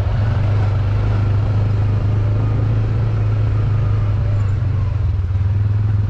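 Honda TMX125 Alpha's single-cylinder four-stroke engine running steadily with a low, even drone.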